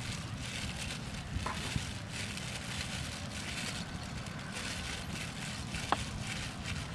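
Plastic bag worn as a glove crinkling and rustling in repeated patches while the hand works meat and vegetables in a steel bowl, over a low wind rumble on the microphone. A brief thin rising chirp comes about six seconds in.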